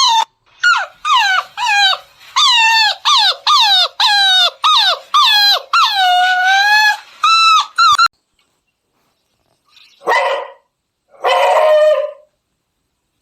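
Beagle puppy yelping in a quick run of high cries, each falling in pitch, for about eight seconds, cut off abruptly; then, after a short silence, two rougher barks.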